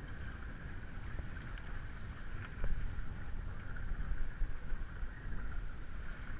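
Wind buffeting the microphone on a small boat over choppy water, with a steady hiss over the rumble.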